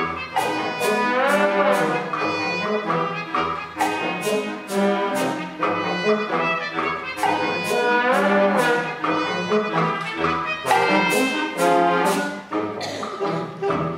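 Concert wind band playing, led by brass: full chords punctuated by many sharp accented hits, with a rising-and-falling swoop in the melody twice.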